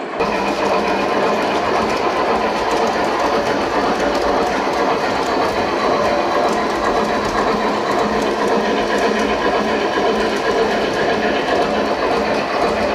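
Gauge 1 model trains running on the layout: a steady whir of small electric motors and gearing, with rapid clicking of metal wheels over the track.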